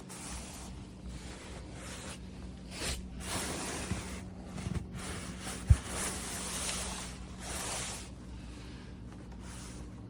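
Rubbing and rustling handling noises that come and go, with a few light clicks and one sharp thump about halfway through, over a steady low hum.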